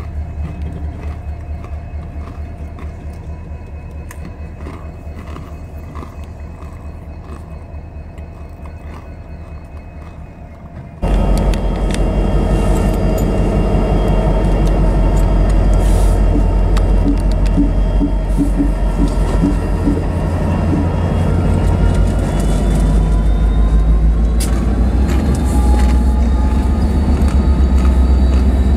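Diesel-electric freight locomotives running close by: a deep rumble with a steady low pulse that slowly fades. About 11 seconds in it cuts to a much louder locomotive engine rumble, with a whine that rises in pitch over the last several seconds.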